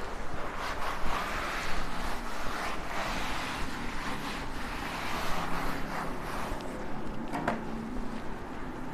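Cloth wiping chalk off a blackboard: a rubbing swish that swells and fades with each broad stroke, with a short sharp knock about seven and a half seconds in.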